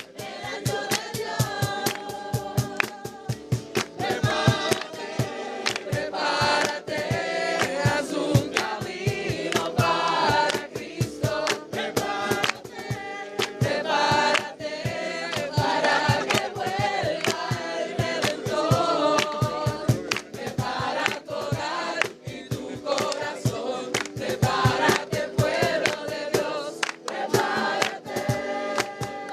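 Group of voices singing a song, in the manner of gospel or Christian music, over a fast, steady percussive beat.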